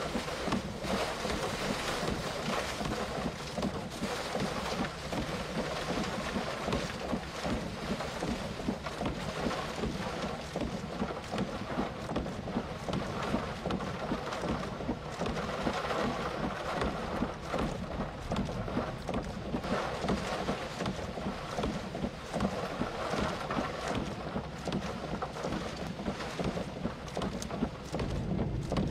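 Heavy rain and gusty wind in a storm: a steady rushing noise, with the wind buffeting the microphone.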